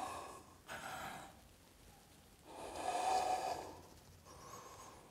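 A man breathing heavily in a string of loud, noisy breaths, the longest and loudest about three seconds in, with a fainter one near the end.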